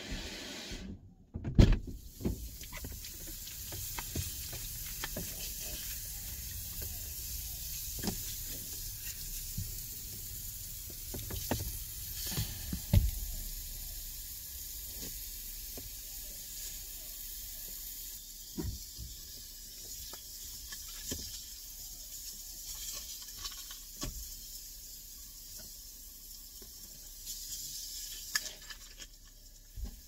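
Low, steady running rumble of a car heard from inside the cabin as it backs slowly out of a garage, with a sharp thump about a second and a half in and scattered light knocks and clicks.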